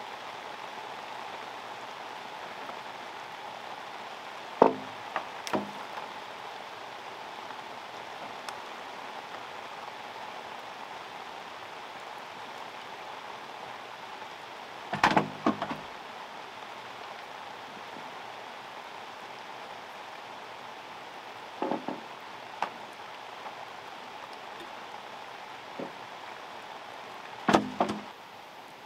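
Steady rain falling on a pond. Over it come hollow knocks of bamboo poles against the bamboo frame and raft, a few every several seconds. The loudest clusters are about 5 seconds in, about 15 seconds in and near the end.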